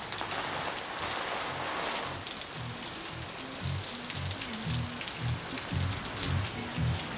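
Steady rain falling. About two and a half seconds in, music comes in under it: a low bass pulsing about twice a second.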